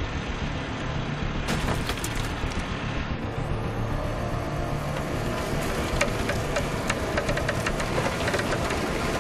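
Heavy truck engine running steadily under load while a winch drags a ditched semi tractor. From about four seconds in, scattered sharp cracks and crunches sound as the truck moves over snow and debris.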